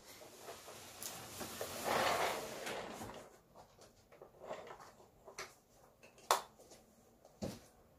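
Plastic toy airplane and figures being handled on a laminate floor: a scraping, rustling swell around two seconds in, then scattered light plastic clicks and taps, the sharpest a little past six seconds.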